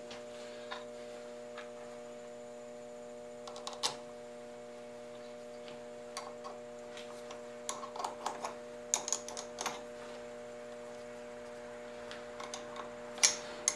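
Scattered light metallic clicks and taps from handling tools at a three-jaw chuck on a rotary table, bunched in small clusters around the middle and near the end, over a steady electrical hum.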